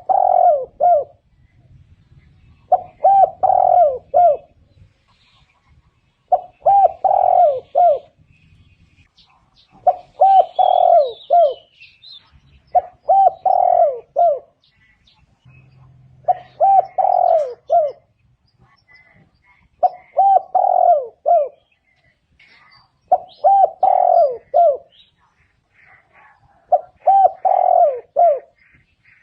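Spotted dove cooing: a short phrase of several quick coos, repeated the same way about every three and a half seconds. Faint high chirps of small birds come in near the middle.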